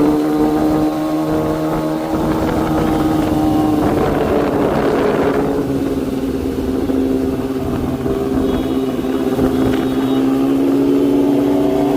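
Kawasaki Z900 motorcycle's inline-four engine running at a steady speed, its pitch sagging slightly in the middle and rising a little near the end. A brief rushing noise sounds about four to five seconds in.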